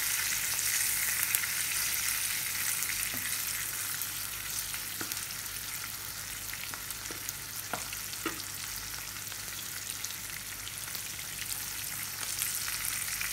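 Tuyo (dried salted fish) and garlic cloves frying in oil in a nonstick pan. A steady sizzle eases a little over the first few seconds, then holds, broken by a few sharp clicks.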